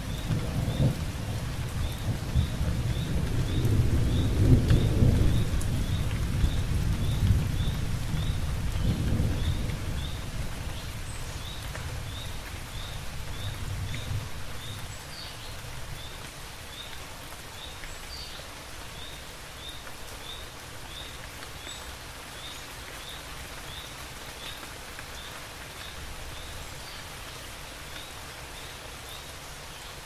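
Steady rainfall with a long rolling rumble of thunder that swells to its loudest about four seconds in and dies away by about fifteen seconds. A high chirp repeats about three times every two seconds throughout.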